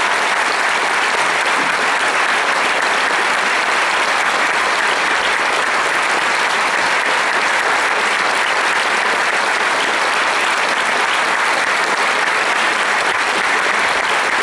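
Audience applauding steadily, a dense even clapping with no music.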